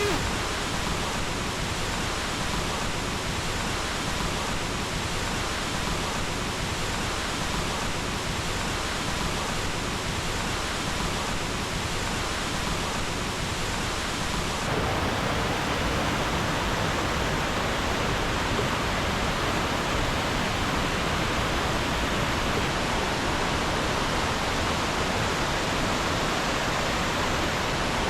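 Steady rushing of a large waterfall's falling water, a little louder after a cut about halfway through.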